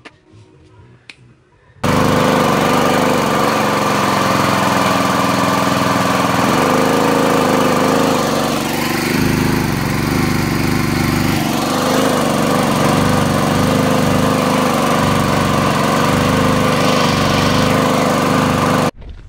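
Honda GCV160 single-cylinder engine on a pressure washer running loud and steady, without surging, after F10 fuel-cleaner additive cured its hunting idle; there is a brief waver in its note near the middle. It cuts in abruptly about two seconds in, after a few faint clicks.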